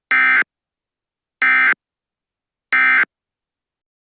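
Emergency Alert System end-of-message (EOM) SAME data bursts: three short bursts of digital data tones about a second and a quarter apart, signalling the end of the alert.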